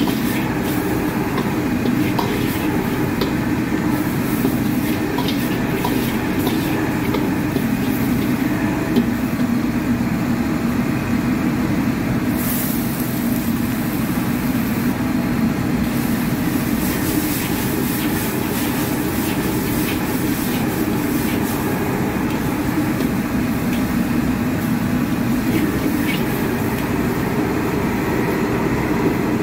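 Commercial gas wok range running with a steady rushing noise, mixed with a tap pouring water into a pot beside the wok. Scattered clinks of the cooking utensil against the steel wok sound through it.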